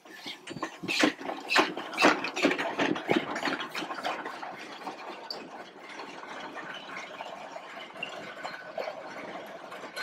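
Aveling and Porter steam roller moving off, its steam engine beating in a quick, even rhythm over a mechanical clatter. The sound is loudest in the first few seconds and grows fainter as the roller draws away.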